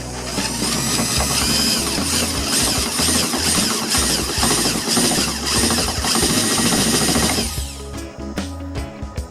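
Drill press running and drilling, a rough cutting noise with a high whine that wavers up and down about twice a second, stopping about seven and a half seconds in. Background music plays throughout.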